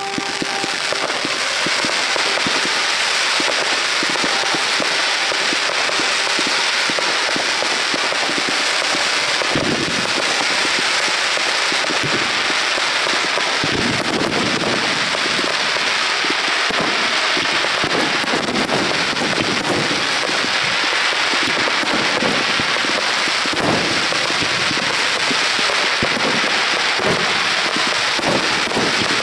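Fireworks display: a dense, continuous barrage of pops and bangs from rockets and shells bursting overhead, with no let-up.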